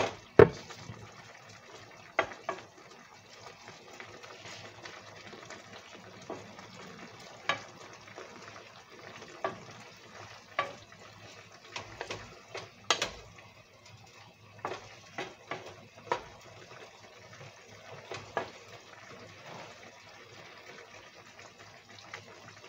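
A wooden spatula stirring beef in sauce in a skillet, scraping and knocking against the pan at irregular moments every second or two, over the steady hiss of the simmering sauce.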